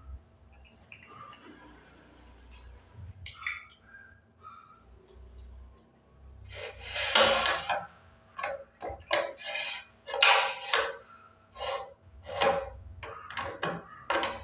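Metal knocking and clinking from a pin-badge and keychain press and its parts being worked: a few light clinks at first, then a quick irregular run of sharp knocks in the second half.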